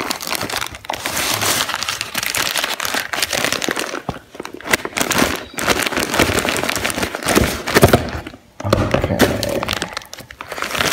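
Thin clear plastic bag crinkling and rustling with sharp crackles as a solar charge controller is unwrapped and handled. The rustling comes in uneven spells with a few short pauses.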